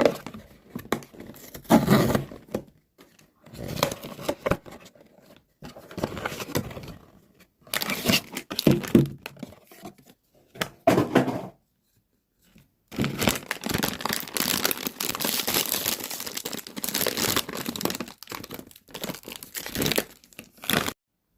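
Plastic and paper figure packaging being torn open and crinkled by hand, in irregular bursts with a pause about halfway through, then a long stretch of steady crinkling.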